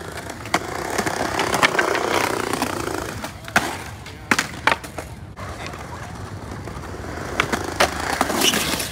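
Skateboard wheels rolling on concrete, the rolling noise swelling and fading. About nine sharp clacks of boards hitting the ground are scattered through it.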